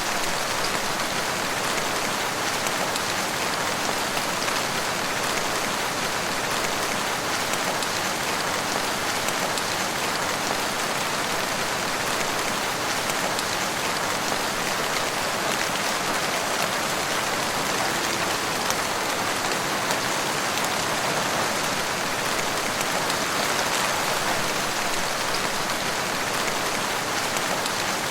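Steady rain falling in woodland: an even, unbroken hiss of rain on leaves and ground.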